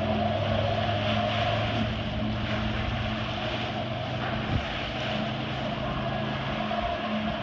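Personal watercraft engine running steadily to power a flyboard through its hose, a continuous drone with a hiss of spray over it. A single short knock about four and a half seconds in.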